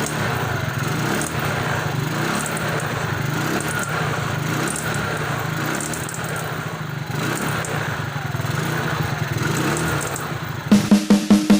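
Yamaha Mio Smile scooter's single-cylinder engine running steadily, with a thin steady whine over it: the strange squealing, rough noise from the CVT case. Near the end, music with a drum beat starts.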